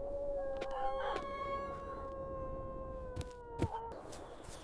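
A single long howl held at one steady pitch for about four seconds, dipping slightly as it fades out, with two faint clicks near the end.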